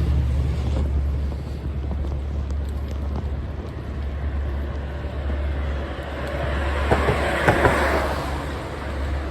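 Road traffic and a steady low wind rumble on the microphone while cycling; a vehicle passes close, swelling and fading about seven to eight seconds in.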